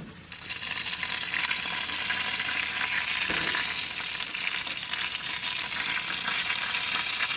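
Pork butt sizzling and crackling in a smoker as its fat renders, a steady dense crackle that swells in just after the start.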